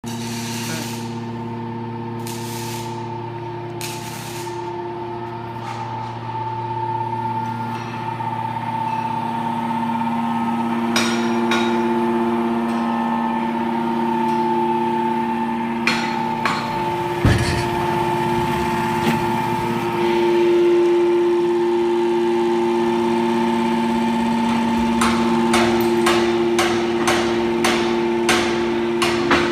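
Hydraulic scrap metal baler running: a steady machine hum and whine from its electric-motor-driven hydraulic pumps, shifting in tone about two-thirds of the way through, with metal clanks and knocks as scrap is pressed. There is one heavy thump around the middle and a quick run of clicks near the end.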